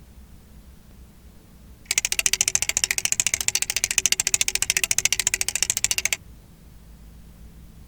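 Flip-dot display's electromechanical dots flipping in a fast, even run of sharp clicks, about a dozen a second. The run starts about two seconds in and stops abruptly some four seconds later.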